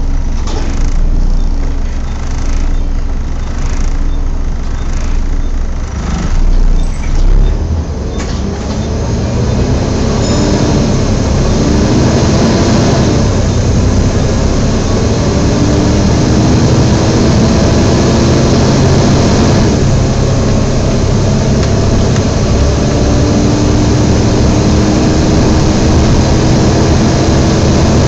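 Volvo B7TL double-decker bus heard from on board: quieter at first with a few low thumps, then from about nine seconds in the six-cylinder diesel pulls away and accelerates, its pitch rising several times through the gears. Over it runs the loud, steady whooshing of the engine's cooling fan, the noise known as the 'hoover'.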